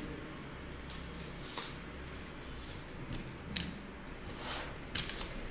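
Faint clicks and scuffs from a GoPro Hero 10 action camera being handled, a few scattered ticks over a low steady hum.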